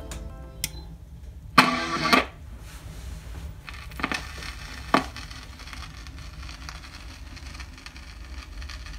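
Record player being handled: a loud scraping rustle about one and a half seconds in as the tonearm and stylus are moved over the vinyl record, then two sharp clicks about a second apart, over a steady low hum.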